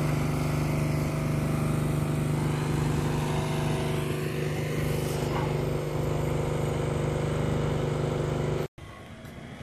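A steady, even engine hum, like a vehicle idling, that cuts off suddenly near the end.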